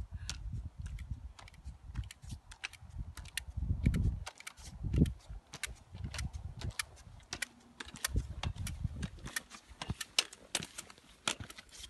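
Walking on a stony mountain path: irregular sharp clicks of trekking-pole tips and boots striking stone, several a second, over bursts of low rumble.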